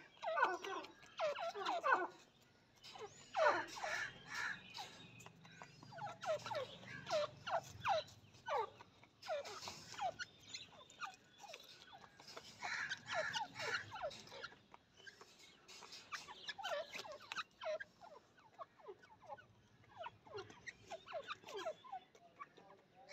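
Grey francolin (teetar) calling in bouts of short notes, each sliding down in pitch, with brief lulls between bouts.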